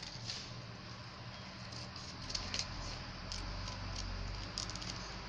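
Faint, scattered rustles of a paper sewing-pattern piece being handled and moved over drafting paper, over a steady low hiss.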